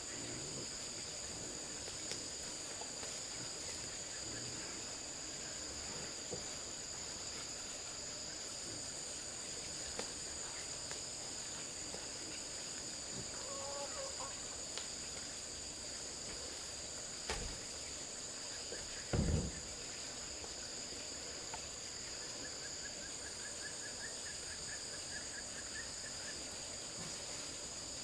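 Steady insect chorus of crickets or cicadas, a continuous high shrill drone. Two dull knocks come about 17 and 19 seconds in, and a faint run of rapid chirps comes about two-thirds of the way through.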